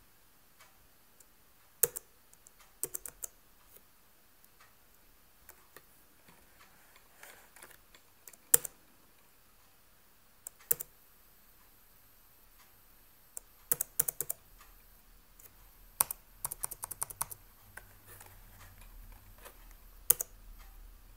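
Clicking on a laptop's keys and buttons: scattered sharp single clicks, with short quick runs of clicks about 14 and 17 seconds in.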